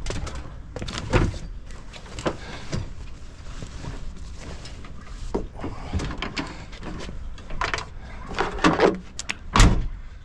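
Clunks, knocks and rattles from the back of a pickup with a truck-bed topper being handled: the tailgate and the topper's rear glass hatch. A louder thump comes near the end.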